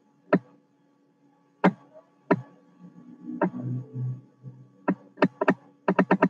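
Computer keyboard keystrokes: a few single taps spaced about a second apart, then a quick run of keys near the end as a spreadsheet cell is typed into.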